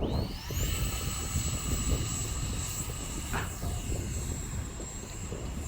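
Radio-controlled model airplane's motor and propeller spinning up at the start into a high whine, then holding steady. Strong wind rumbles on the microphone.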